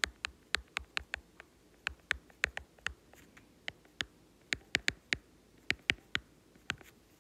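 Stylus tip tapping on a tablet's glass screen during handwriting: an irregular run of sharp taps, several a second, as each stroke lands.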